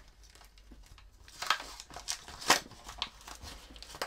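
Packet of soft-plastic Berkley PowerBait lures crinkling and crackling as hands pull and twist at it, trying to find the way to open it. The sharp crackles get louder and come thicker from about a second and a half in.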